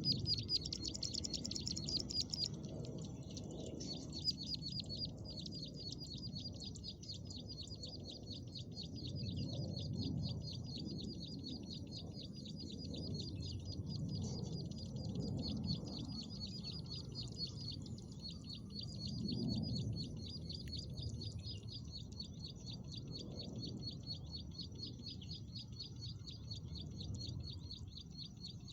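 Ciblek sawah (prinia) calls: a fast, unbroken run of high chirps, with a short break about eighteen seconds in. A low background rumble sits beneath.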